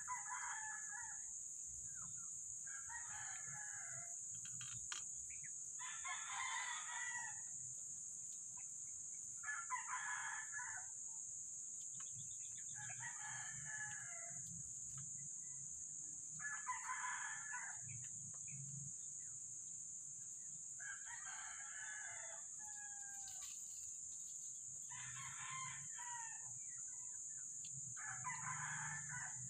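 Roosters crowing again and again, one crow about every three seconds, over a steady high-pitched hiss.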